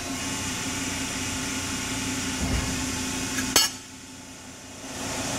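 Hydraulic press brake running with a steady hum. A low surge comes about two and a half seconds in, then a single sharp metallic clank about a second later. After the clank the hum drops away for about a second and then comes back.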